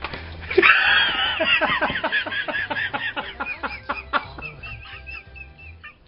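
A person laughing hard: a long run of high-pitched laughing bursts, about four a second, starting loud and tapering off toward the end.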